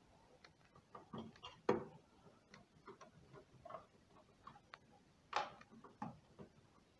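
Irregular small clicks and taps of a screwdriver, small screws and cables being handled while a 3D printer's motherboard is fitted and screwed down, with two louder knocks, one just under two seconds in and one about five and a half seconds in.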